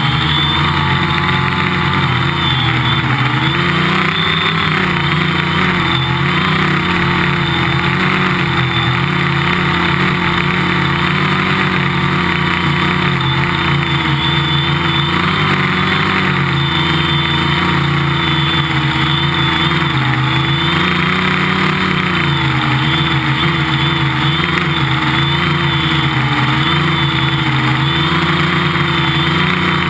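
Quadcopter's electric motors and propellers heard from its onboard camera: a loud, steady buzz whose pitch drifts up and down as the motors change speed to hold the flight.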